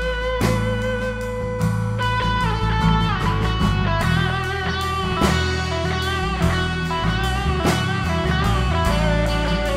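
Live rock band playing an instrumental passage: an electric guitar carries a melody with bends and slides between notes over a steady bass line and drums.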